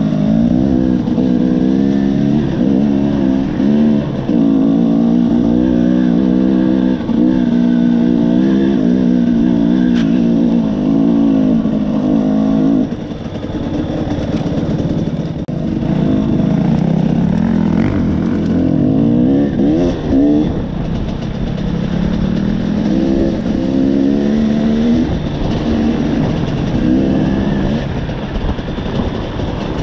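KTM 300 XC single-cylinder two-stroke dirt bike engine being ridden on a trail, its pitch rising and falling over and over with the throttle. About halfway through it eases off and runs lower for a while before revving up again.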